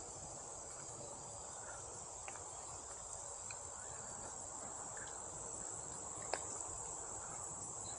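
Steady, high-pitched chorus of insects, with a few faint ticks, one about six seconds in.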